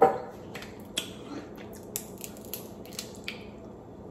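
Steamed blue crab shell cracking and snapping as it is picked apart by hand: a series of sharp clicks, the loudest right at the start and then several smaller ones spaced irregularly.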